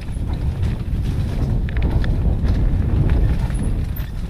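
A mountain bike running down a rocky dirt trail: the tyres rumble over the ground and the bike clatters, with short knocks from rocks and roots. Heavy wind buffets the GoPro's microphone at riding speed.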